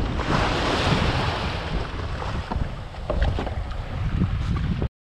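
Wind buffeting the microphone over small surf washing against the beach and the kayak's hull, with a surge of breaking wave about half a second in and a few light clicks later on. The sound cuts off abruptly near the end.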